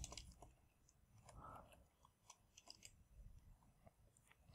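Near silence, with a few faint scattered clicks of computer keyboard keys.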